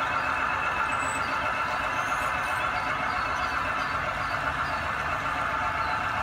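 Large-scale model freight train rolling past on garden railway track: a steady rolling hiss of wheels on rail, with a few faint high squeaks.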